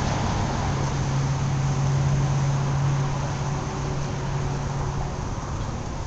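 Road traffic noise: cars driving by, a steady rush with a low engine hum that eases off a little past the middle.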